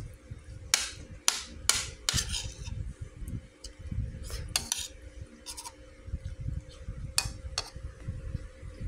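Metal spoon clinking and scraping against a bowl of rice, about ten short sharp clinks spaced unevenly as food is scooped up.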